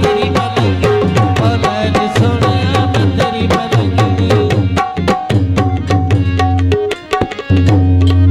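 Dhamal music: harmonium chords held over fast, driving hand-drum strokes, which briefly drop out about seven seconds in.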